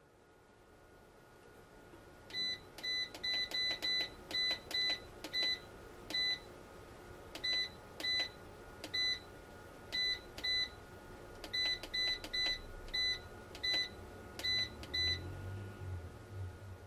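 Solar inverter/charger's front-panel keypad beeping once with each button press: about two dozen short high beeps, some in quick runs and some spaced out, as the display is stepped through its readings. A faint steady whine runs underneath.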